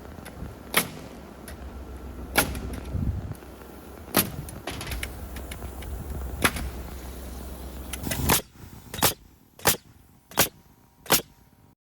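A series of sharp nailing strikes driving fasteners into roof lumber, spread out at first and then four in quick succession near the end, over a steady low rumble that stops after about eight seconds.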